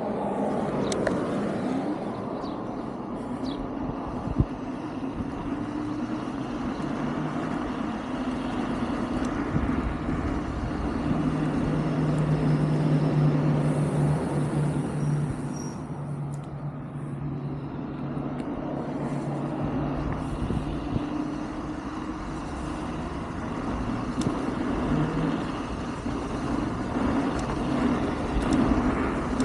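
Wolf King GT Pro electric scooter riding along: a steady motor hum whose pitch shifts a little with speed, over continuous riding noise.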